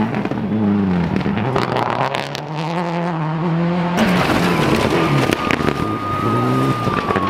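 Rally car engine revving hard, its pitch climbing and dropping several times as it shifts through the gears. A steady high whistle runs through the last few seconds.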